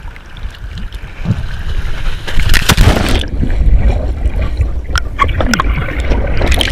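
Water rushing and splashing on a kitesurfer's action camera, then a loud splash about two and a half seconds in as the rider crashes into the sea. From about three seconds in the sound is muffled and rumbling, with bubbling, as the camera is underwater.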